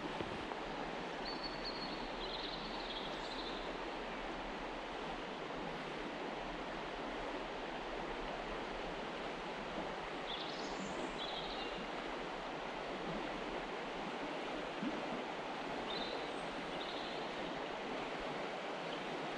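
River running high in flood, a steady rush of water over the riffles. A few short high chirps are heard about a second in, around ten seconds in and again near the end.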